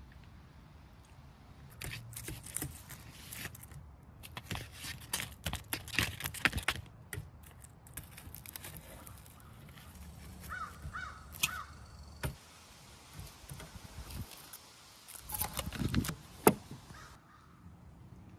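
Clinks and rattles from a wire grill basket as grilled shrimp are lifted out onto a plate, coming in irregular bursts. A crow caws three times in the middle, and a second bunch of clatter ends in one sharp click near the end.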